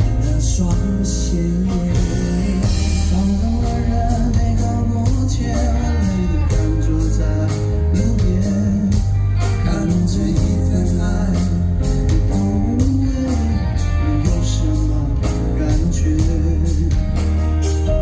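Loud live rock band music with a steady drum beat and a melodic line over it, from a pop-rock ballad between its sung verses.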